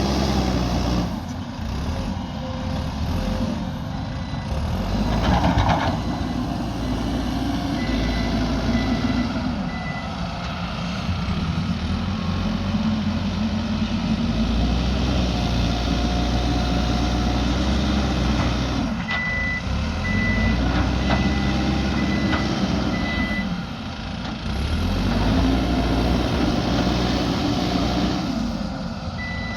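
Backhoe loader's diesel engine running and revving up and down as it works, with its reversing alarm sounding runs of short, evenly spaced high beeps while it backs up.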